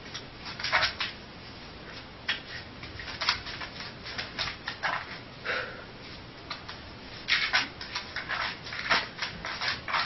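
A sleeping dog lying on its back, its hind paws twitching and scrabbling against a wall in quick, irregular scratches and taps.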